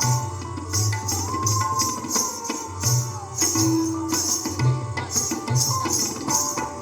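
Indian classical dance music: tabla drum strokes in a lively rhythm under a held, gliding melodic line, with a bright jingling in time with the beat.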